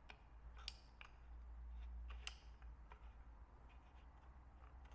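A few faint, sharp metal clicks and taps as the gas tube of a DSS PZD556 light machine gun is turned and worked loose from the receiver, over a low hum.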